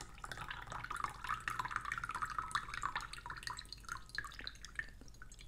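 Jasmine tea trickling in a thin stream from a glass teapot into a glass mug, thinning to a sparser dribble about three seconds in.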